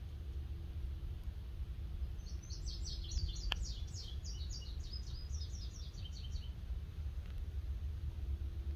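A small songbird sings a rapid run of short high chirps, about five a second, for roughly four seconds, starting about two seconds in. A steady low background rumble runs underneath, and there is one sharp click partway through.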